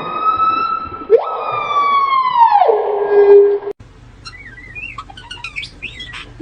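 Two long howls, each rising quickly, holding high and then dropping away. After a sudden cut about four seconds in, short chirping bird calls follow, fainter.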